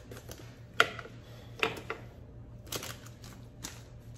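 Kitchen handling sounds: a few sharp clicks and knocks as things are picked up and set down at the stove and counter, the loudest about a second in, over a faint steady low hum.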